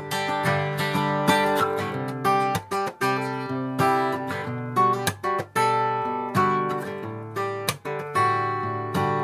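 1975 Yamaha FG-150F acoustic guitar being played: chords strummed again and again, each ringing out, with a few brief breaks between them.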